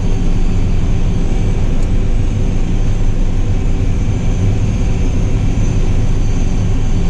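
John Deere 8520 tractor running steadily at road speed, its diesel engine and tyres making a loud, unbroken low drone.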